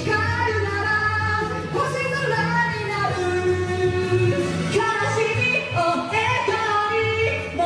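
Japanese pop song playing on a karaoke system, with a voice singing the melody over the backing track.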